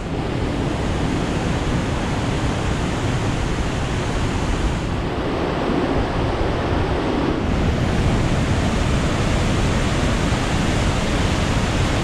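A large waterfall heard close by: a loud, steady rush of falling water.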